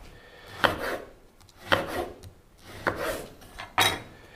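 Serrated knife cutting slices off a frozen yeast-pastry twister on a wooden cutting board: four cuts about a second apart, each a short rasping stroke ending on the board.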